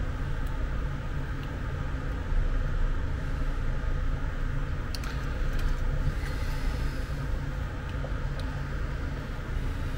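Steady low rumble, with a few faint clicks as small parts are handled on the circuit board.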